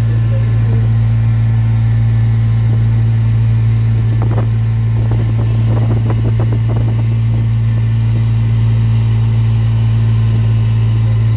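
Utility vehicle's engine running at a steady cruising pace, a constant low hum. A few faint knocks and rattles come in the middle.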